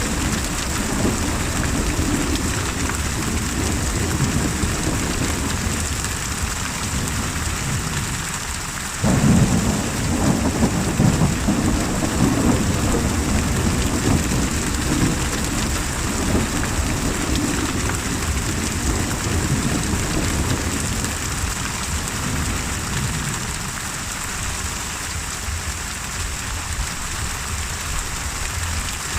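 Steady rain hissing with rumbling thunder; about nine seconds in, a loud thunderclap breaks suddenly and rolls on for several seconds before dying away.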